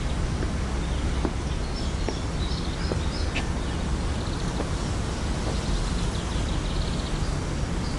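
Steady outdoor background noise with a low rumble, and small birds chirping now and then high above it, most clearly a couple of seconds in.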